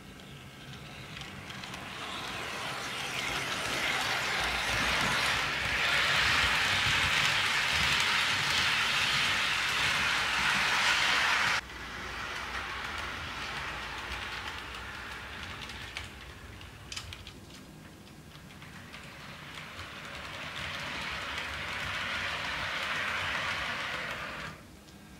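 HO scale model diesel locomotive and covered hopper cars rolling along sectional track as they pass close by. The running noise builds up and cuts off suddenly about halfway, then builds again and cuts off shortly before the end.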